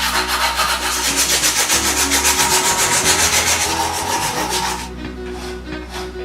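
Aluminium motorcycle gear shifter being abraded to round off its square edges: a loud, rapid, evenly repeating rasping that stops about five seconds in, over background music.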